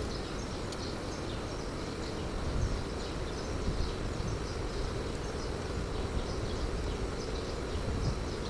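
Steady low background rumble with faint, short, high chirps repeating irregularly over it, from insects.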